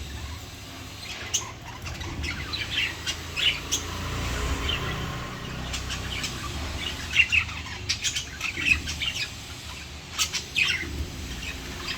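Lovebirds chirping: many short, sharp calls in irregular clusters, several birds at once, over a steady low rumble.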